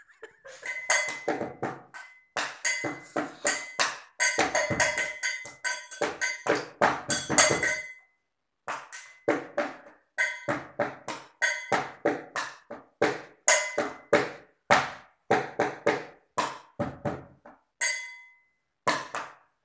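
Fast improvised hand-drumming on a tin container: quick runs of sharp strikes with a ringing tone, broken by a brief pause about eight seconds in and another near the end.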